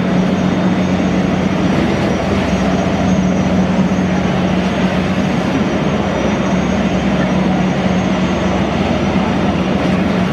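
Boeing Jetfoil 929 hydrofoil ferry's gas turbines and waterjet propulsion running steadily as it moves slowly with its hull in the water: a loud, even rushing noise with a steady low hum.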